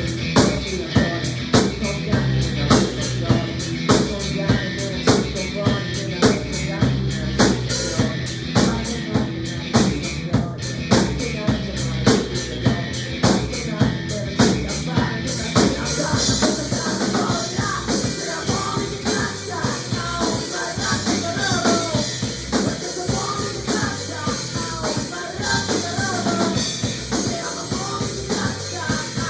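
Music with a drum kit keeping a steady beat; about halfway through it gets fuller, with a busy melody line over the drums.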